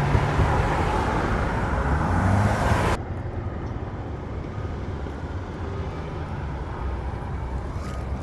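Road traffic at an intersection: a motor vehicle running close by with a low engine drone, then about three seconds in the sound drops suddenly to quieter, more distant traffic hum.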